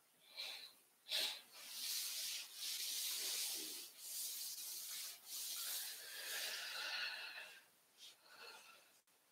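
Soft rubbing and rustling of clothing and hands as a seated person shifts and lowers their hands. Two short swishes come first, then several seconds of near-continuous rubbing with brief breaks, fading to a few light swishes near the end.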